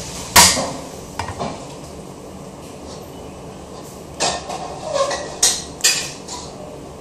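Sharp clicks and knocks of kitchen items being handled. The loudest comes about half a second in, two lighter ones follow a second later, and a cluster of four or five comes near the end.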